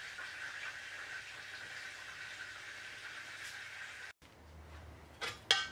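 Faint, steady sizzle of oil frying in a pan, cut off suddenly about four seconds in, then two light clicks near the end.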